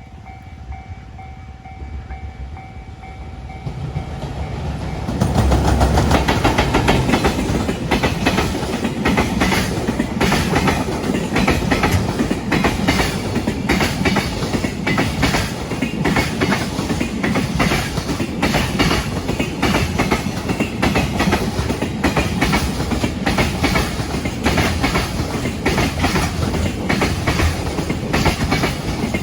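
A level-crossing warning bell rings with a steady two-tone sound. About five seconds in, a freight train on the Tokaido Freight Line passes close by and drowns it out. Its wheels clatter over the rail joints in a fast, continuous clickety-clack.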